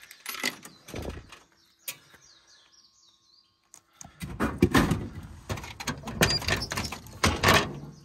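Coins clinking into a drinks vending machine's coin slot in the first second. From about four seconds in, a run of loud clunks and knocks as the can drops into the delivery tray and is pulled out through its flap. Small birds chirp in the background.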